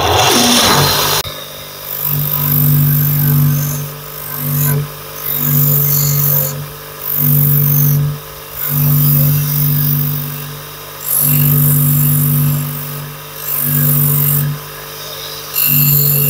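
An electric power tool running in repeated bursts of about one to two seconds, each burst a steady hum with a high hiss that stops in the short gaps between.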